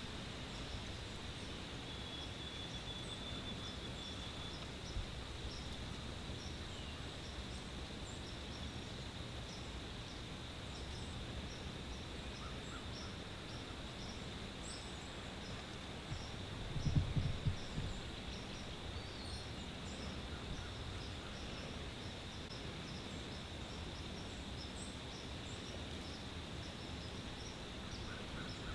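Quiet rural outdoor ambience: a steady hiss with faint, high, repeated bird chirps. A brief low rumble comes about two-thirds of the way through and is the loudest sound.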